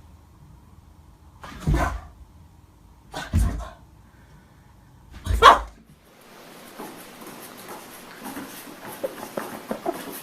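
A dog barking three times, about two seconds apart, the last bark the loudest. After about six seconds only faint hiss and small scattered noises remain.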